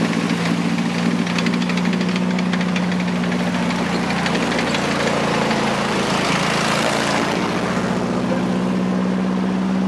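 M4 Sherman tank driving past at close range: a steady engine drone with the steel tracks clattering quickly. The clatter grows loudest about six to seven seconds in as the tank passes, then eases off.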